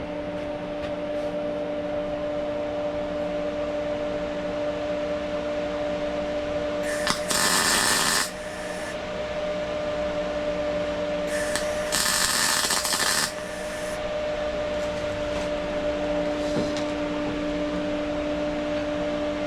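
Two short bursts of crackling welding arc, about a second each, as tack welds are laid on a steel fixture table. A steady electrical hum runs underneath.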